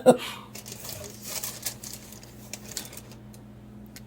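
Faint scattered taps and rustles of sandwich ingredients being handled and laid on bread, fading out after about three seconds, over a steady low electrical hum.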